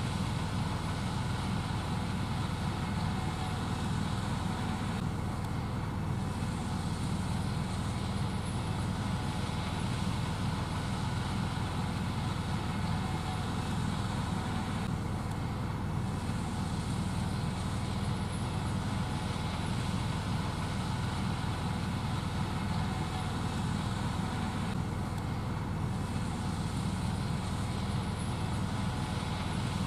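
Gleaner S78 combine harvester running steadily while shelling corn, a constant low drone of engine and machinery with no change in speed.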